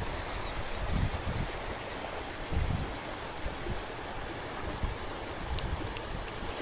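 Steady rush of the Ocoee River's water running over rocks, with wind buffeting the microphone in low thumps about a second in and again at two and a half seconds.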